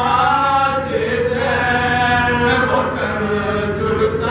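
A small group of men chanting a soz, an unaccompanied Shia mourning lament, together in long, slowly bending held notes, led by one voice.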